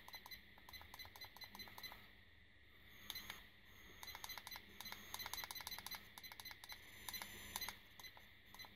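Buttons on an Aukey DR01 dashcam pressed in quick succession to step the clock setting, giving faint rapid clicks several times a second. The clicks come in two runs, the second starting about four seconds in and lasting about three seconds.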